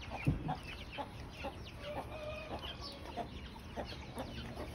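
Chickens clucking in a farmyard, with many short high chirps scattered through. A dull thump about a third of a second in.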